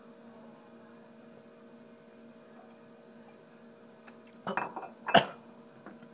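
A faint steady room hum, then about four and a half seconds in a brief scuffle and a single sharp clink, a drinking glass set down hard on a table.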